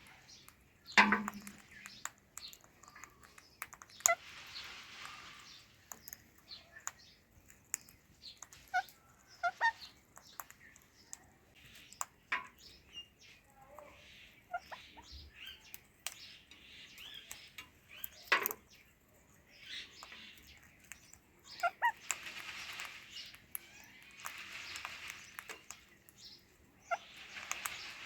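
Pet ringneck parakeets making short, scattered chirps and squeaks, with occasional sharp clicks and a few brief stretches of soft hissing noise.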